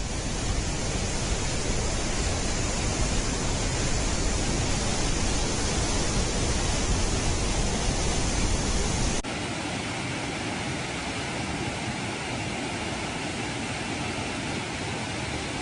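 Floodwater rushing, a steady dense noise of water pouring through dam spillway gates and over river rapids. About nine seconds in it drops abruptly to a slightly quieter, thinner rush.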